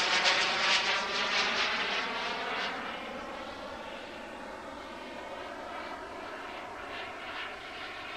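A radio-controlled Hunter model jet flying past: its motor's whine, with a pitch that slides down slightly, is loud at first, fades over the first few seconds as the plane flies away, then holds faint and steady.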